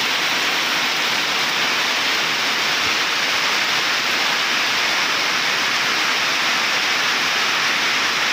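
Heavy downpour of rain: a loud, steady, unbroken hiss of rainfall.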